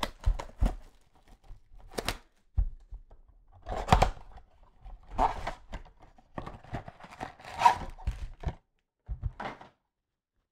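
Trading card packaging being handled and torn open: a few sharp knocks, then rustling, crinkling tears of box and pack wrappers, stopping suddenly near the end.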